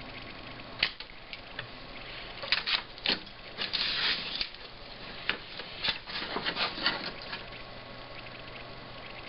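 Small sharp clicks, taps and scraping of hand tools against a circuit board while an electrolytic capacitor is being desoldered. The sounds come irregularly, busiest in the middle, with a short hissing stretch near the middle.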